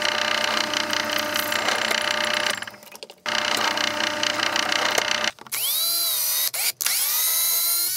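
Pillar drill boring through an acetal plate: a steady whirring cut, broken by a short pause about two and a half seconds in. From about five and a half seconds a cordless drill runs twice in short bursts, its motor pitch sagging under load and climbing again.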